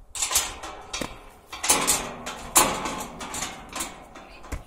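Green steel gate rattling and clanking in several loud bursts, with some ringing, as it is handled and vaulted over.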